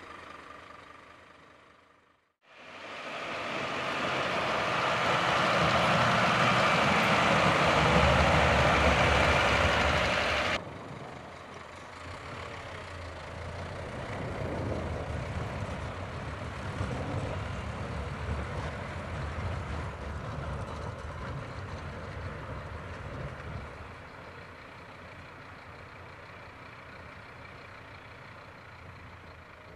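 Scania P270 plough truck's diesel engine running as the truck drives, ploughing snow. For about eight seconds a loud, dense rushing noise with low engine rumble plays, then cuts off abruptly. After that the engine runs more steadily and grows quieter near the end as the truck moves off.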